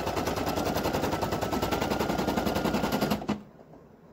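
Brother PE800 embroidery machine stitching at speed, a rapid even rattle of needle strokes over a faint motor whine, sewing down the applique fabric. It stops about three seconds in, and a single click follows near the end.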